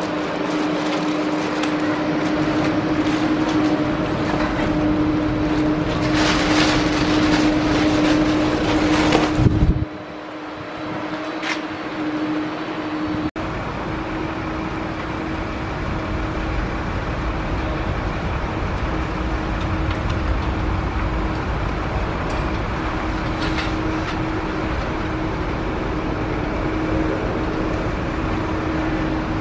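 Boeing 767 freighter's twin jet engines running at taxi power: a steady hum with a constant tone over a broad rush of engine noise. A louder rush comes a few seconds before the sound cuts off abruptly about ten seconds in; it cuts again about thirteen seconds in, and then the same steady engine noise runs on.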